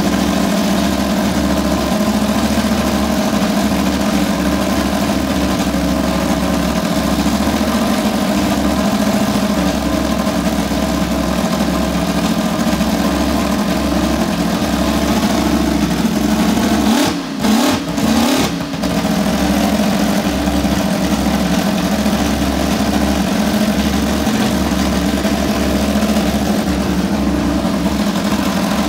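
Mercedes-Benz W196R's straight-eight racing engine idling steadily through its side exhaust pipes during its warm-up. About two-thirds of the way through, the engine note briefly drops and picks up again a few times.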